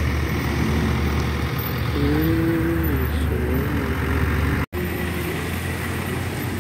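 Town street traffic on a wet road: vehicle engines running and cars passing, with a steady low rumble. A person's voice is heard briefly about two seconds in, and the sound cuts out for an instant about two-thirds through.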